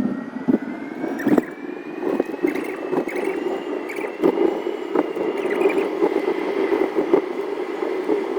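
Electric car on the move: a thin motor whine rises in pitch over the first few seconds as it gathers speed, then holds. Under it runs steady road noise, with scattered knocks and rattles.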